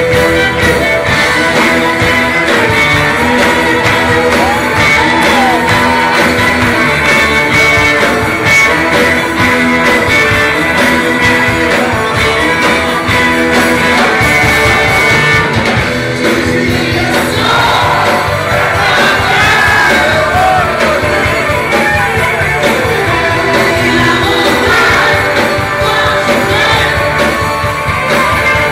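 Rock band playing live, recorded from within the crowd: electric guitars and violin over a steady beat, with a lead vocal line that comes to the fore a little past halfway.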